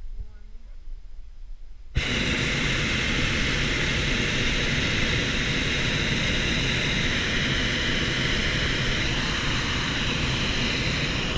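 A hot air balloon's propane burner firing. It starts abruptly about two seconds in and runs as one steady, loud blast for about nine seconds.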